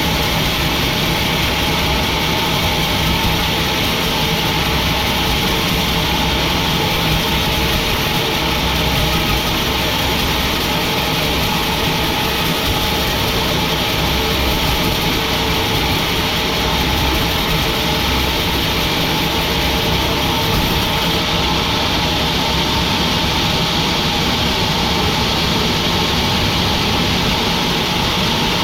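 Sawmill machinery running steadily: a constant mechanical drone with a few steady humming tones and no change in load.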